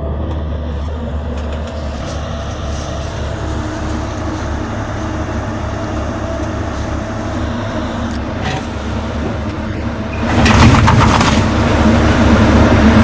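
Diesel engine running steadily, growing clearly louder about ten seconds in, as under more throttle or load.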